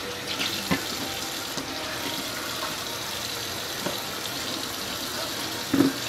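Hot water poured from a stainless steel kettle into a glass French press carafe, a steady splashing fill. A knock near the end as the kettle is set down on the counter.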